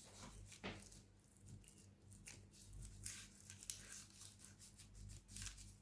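Faint rustling and crinkling of wax paper being handled, with a few soft clicks, as a soft ground-meat mixture is pressed into shape in it. The rustling is busiest in the second half.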